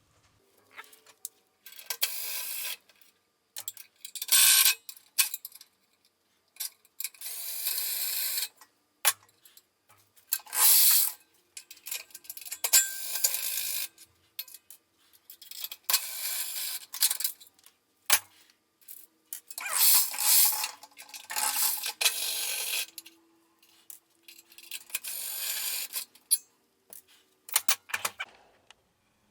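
Metallic rattling and clinking in repeated bursts of a second or two with quiet gaps and sharp clicks between, from hands and tools working among broken-up lead buckshot in a cement mixer drum while the tumbling blades are unbolted and taken out.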